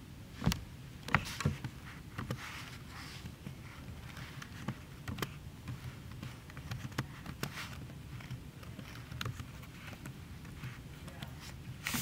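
Irregular clicks and taps of computer keyboard keys as a file name is deleted and a new one typed, the loudest two about half a second and a second in. A faint steady low hum lies underneath.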